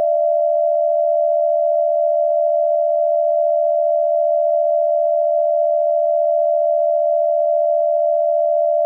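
Emergency Alert System attention tone announcing a tornado warning: one loud, steady electronic tone, held unbroken.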